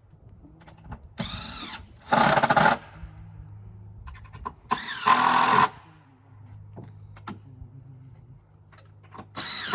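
Cordless drill/driver running in short bursts, four times, each spinning up quickly, as long screws are driven in.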